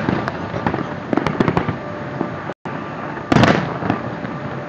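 Aerial fireworks shells bursting, with dense crackling pops throughout and a louder burst about three and a half seconds in. The sound drops out for an instant a little past halfway.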